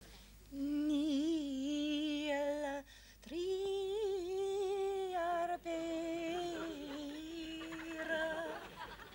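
A woman humming a slow, wordless tune in long held notes with vibrato. The tune comes in three phrases with short breaks between them, the later phrases a little higher.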